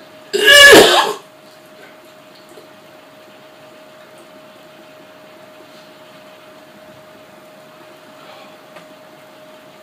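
A man retching once, a single loud wet heave of about a second, from a stomach overfull with cookies and milk.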